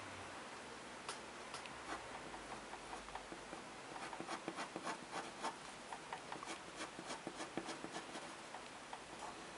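Black pen scratching across drawing paper in short strokes. There are a few strokes at first, then a quick run of several a second from about four seconds in until shortly before the end.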